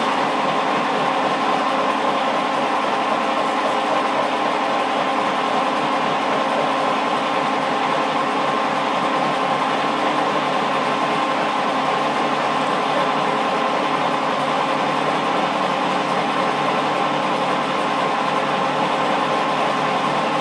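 Cincinnati 205 milling machine running, its cutter taking a final finishing pass around a radius: a steady machine drone with several held tones that stays even throughout.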